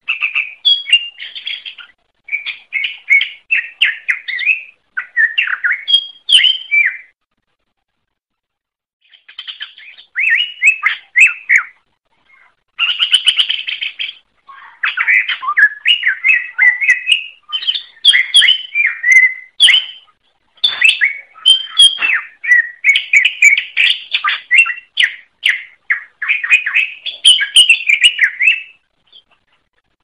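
Greater green leafbird (cucak ijo) singing in long, rapid, varied phrases, with a pause of about two seconds a quarter of the way through and near-continuous song through the second half.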